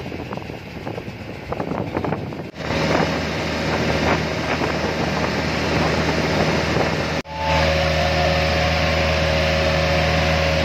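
Motorized outrigger boat underway: its engine drones steadily at cruising speed, with wind and rushing water. The drone starts about two and a half seconds in and cuts off abruptly about seven seconds in, then comes back louder and steadier.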